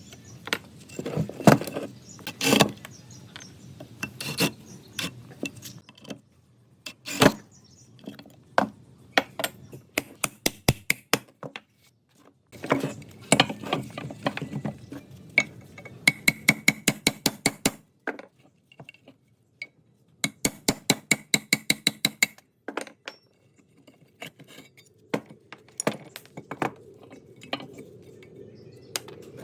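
Metal parts of an old electric cable winch clinking and knocking as they are handled, with two runs of rapid, even clicking partway through.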